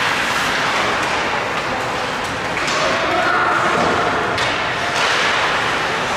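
Echoing game noise in a large indoor hall: a steady hubbub of voices, broken by a few sharp knocks of a ball or puck striking.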